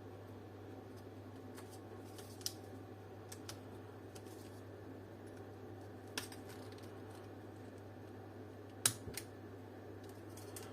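A few sharp plastic clicks and taps as the dome light's plastic housing is pried at with a pick to release its retaining tabs, the loudest near the end, over a steady low hum.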